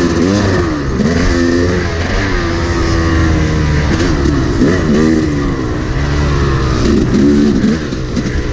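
Dirt bike engine ridden on a motocross track, its revs rising and falling again and again as the throttle is opened and closed.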